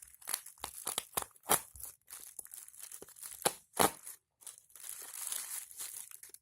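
Parcel packaging being torn open by hand: crinkling and rustling with a string of sharp rips, the loudest about one and a half, three and a half and four seconds in.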